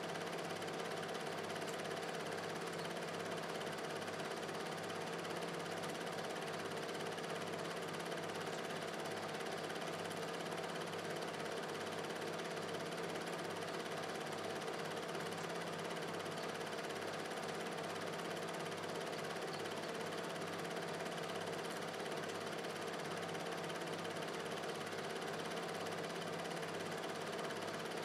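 Film projector running: a steady mechanical whir with a hum and a fast flutter in the low tones.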